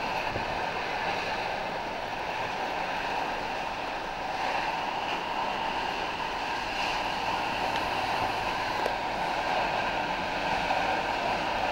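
Steady mechanical din from a scrap metal yard and the passing vehicle: a constant rushing noise with several steady whining tones over it.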